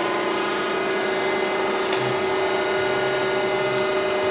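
Okamoto ACC-1224DX surface grinder idling with its hydraulic pump and wheel spindle running: a steady hum with a strong held tone. There is one faint click about two seconds in.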